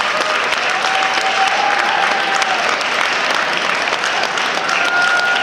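Crowd applauding steadily, a dense even patter of many hands clapping, with a few faint held high notes over it.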